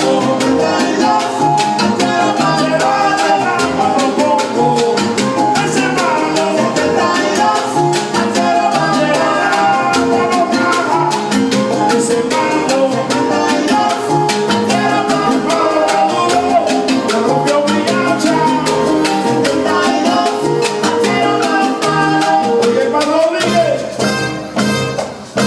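Live salsa band playing, with trumpet and conga drums over a steady rhythm section. Near the end the music thins out and gets quieter.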